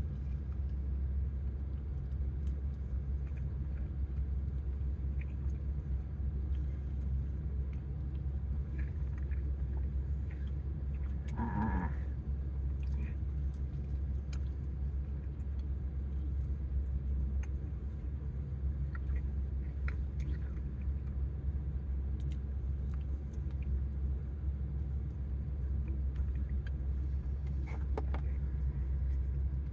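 Steady low hum of an idling car heard from inside the cabin, with faint small clicks and one brief pitched sound about twelve seconds in.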